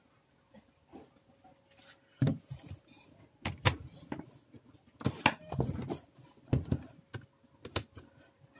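Sharp plastic knocks and clicks of an Acer Aspire 4710 laptop being handled: the lid shut, and the laptop turned over and set down on a table.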